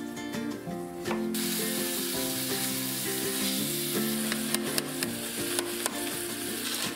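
Meat sizzling as it fries in a cast iron skillet and a steel pot, coming in suddenly about a second in, with a few spatula clicks. Before it, a few knife taps on a wooden cutting board. Background music with held melodic notes plays throughout.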